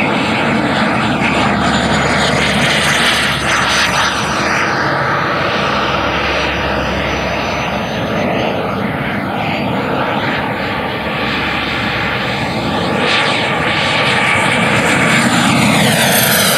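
Electric ducted-fan RC jet flying at high power: a steady, loud rushing whine. Pitch sweeps down as the jet passes close, about 13 seconds in and again near the end.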